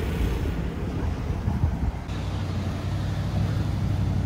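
Street traffic: car engines running in a steady low rumble.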